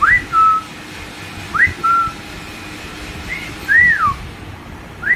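Someone whistling a repeated two-note call: a quick upward swoop followed by a short, lower steady note, about every second and a half. One phrase instead rises and falls in a single arch.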